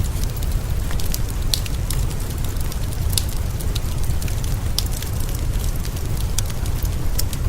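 Wood fire crackling in a fireplace, with irregular sharp pops and snaps over a steady low rumble and a soft hiss of rain.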